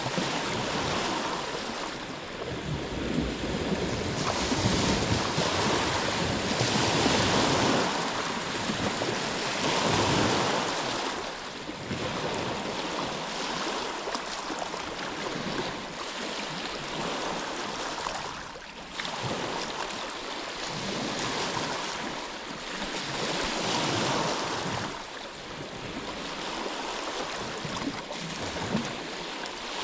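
Ocean surf washing ashore, a steady rush of water that swells and eases every few seconds as waves come in.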